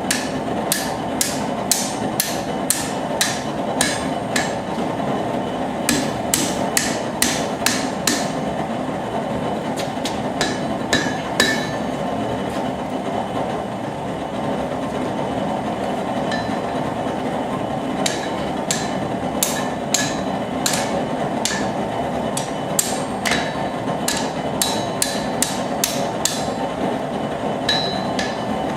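Hand hammer striking hot rebar on an anvil to bend it: runs of ringing blows, about two a second, broken by short pauses and one longer pause near the middle. Under them is the steady rush of a propane forge burner.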